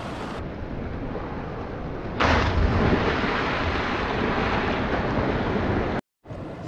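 A crab pot weighted with leaded rope and sash weights, about 35 kilos, hits the sea with a loud splash about two seconds in, followed by several seconds of churning water under wind noise on the microphone. The sound cuts off suddenly near the end.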